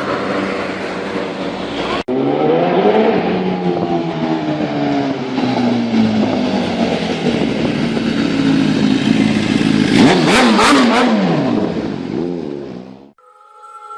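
Inline-four superbike engine with no muffler, revving and accelerating, its pitch climbing and dropping through the gears. There is an abrupt cut about 2 s in, rapid rises and falls in pitch around 10 s, and the engine sound fades out about 13 s in, leaving faint steady tones.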